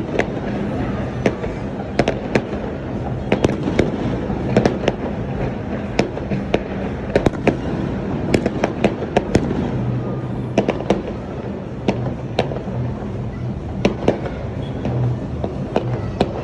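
Fireworks going off: irregular sharp bangs and pops, sometimes several in quick succession, over a continuous background rumble.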